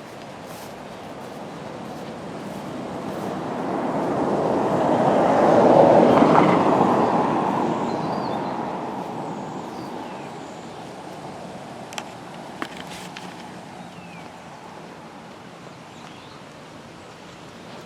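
A vehicle passing by: a rush of noise that swells for a few seconds, peaks about six seconds in and fades away, over a steady background rush. Two short clicks follow near the end of the pass.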